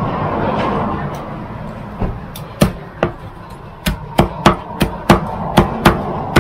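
Meat cleaver chopping grilled chicken on a thick wooden chopping block: about a dozen sharp chops, starting about two seconds in and coming faster toward the end.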